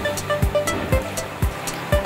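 Background music with a steady drum beat, about two beats a second, with short melodic notes over it.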